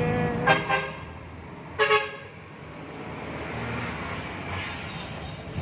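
Vehicle horn tooting in short beeps: a couple near the start and a louder double toot about two seconds in, over the steady low rumble of traffic and the vehicle's own running.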